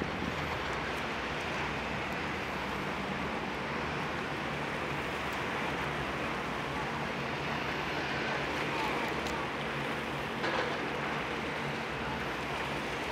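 High-speed catamaran ferry running under way, its MTU diesel engines and KaMeWa waterjets giving a steady low hum over the hiss of its wash. A brief knock about ten and a half seconds in.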